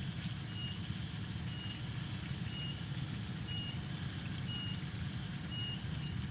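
Outdoor field ambience: a short high chirp repeating about once a second, with a pulsing higher trill between the chirps, over a steady low rumble.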